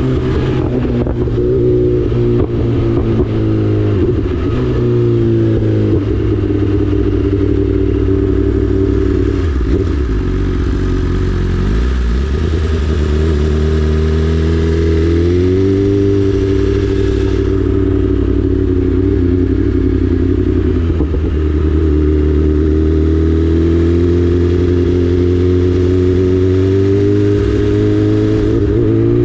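2024 BMW S1000RR's inline-four engine running loud through a full Akrapovic exhaust, its pitch dipping and climbing again several times.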